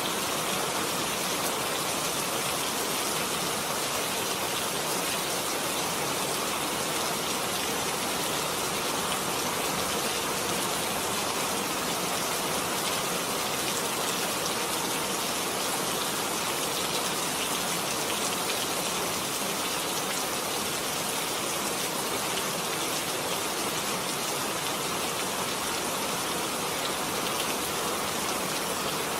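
Steady rainfall, an even hiss of rain falling on surfaces with no let-up.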